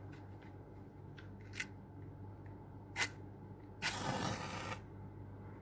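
Small objects being handled: a few light clicks, a sharp click about three seconds in, then a rustling scrape lasting about a second.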